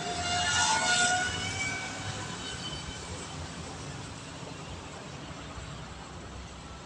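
Electric RC pusher plane's 2200kv brushless motor and 6x4 propeller whining in a low fly-by. It is loudest about a second in, then fades as the plane climbs away.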